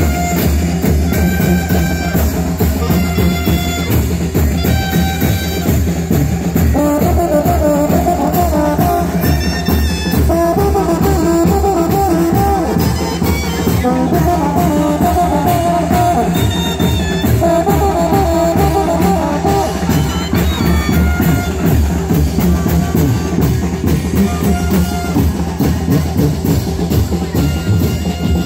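Brass-band music with a steady drumbeat and brass carrying the melody, the kind of brinco music played for chinelo dancers.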